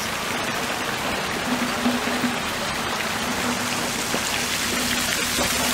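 Steady rushing and splashing of water running in an ice-encrusted fountain.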